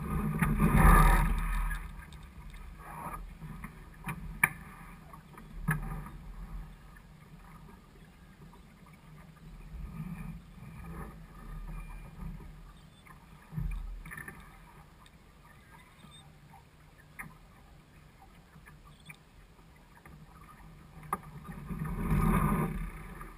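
Water sloshing along a small sailboat's hull under sail, with wind on the microphone and a few short knocks from the boat and its rigging. Louder rushes come about a second in and again near the end.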